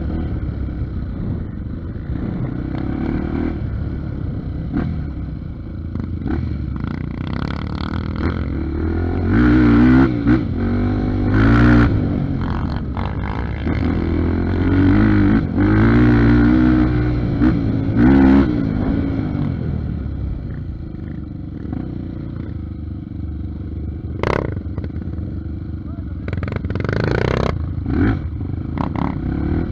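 Honda Tornado 300cc single-cylinder trail bike engine under way off-road, revving up and easing off, with two longer hard pulls in the middle. A couple of short sharp knocks come near the end.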